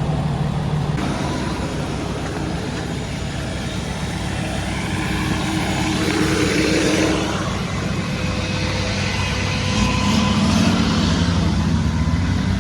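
Off-road 4x4 vehicle engine running under load, revving up about halfway through and again near the end.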